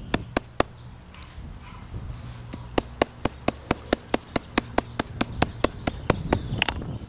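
A small mallet pounding a wet, twisted yucca leaf on a paper towel over concrete, in sharp strikes about four a second. It stops for about two seconds after the first few blows, then resumes a steady rhythm. This is beating the leaf to loosen its fibres for cordage.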